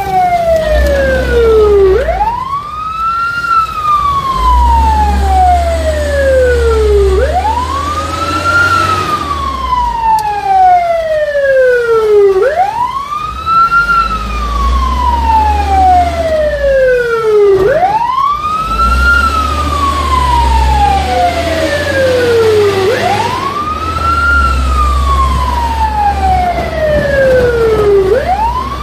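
Fire truck siren wailing, heard from inside the cab. Each cycle rises quickly, then falls slowly, repeating about every five seconds. The truck's engine rumbles low underneath.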